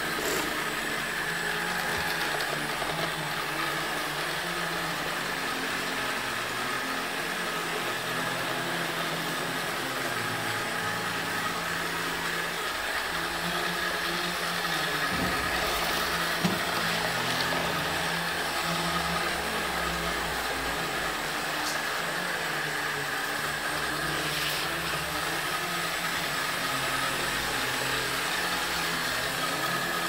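ILIFE V7S Pro robot vacuum cleaner running: a steady whir with a thin high whine over it and a lower hum that shifts in pitch as it moves. A single small knock about halfway through.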